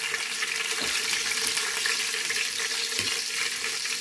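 Whole cinnamon, cloves and cardamom sizzling in hot coconut oil in a pot: a steady frying hiss with fine crackling.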